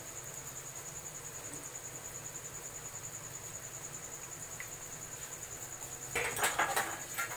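Onion pakoras deep-frying in a pan of hot oil with a steady sizzle, under a steady high-pitched fast-pulsing trill. About six seconds in, a metal slotted spoon clatters against the pan several times.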